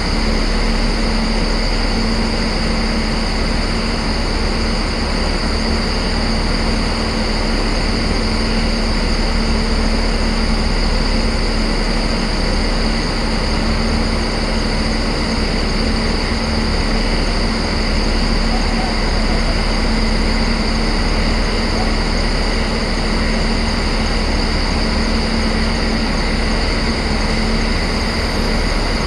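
WAG-7 electric locomotive running with a steady, unchanging hum and a high whine, with no rhythm or clatter.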